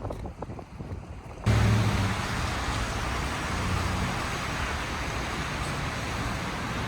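Steady street traffic noise with a low vehicle engine hum, starting abruptly about a second and a half in.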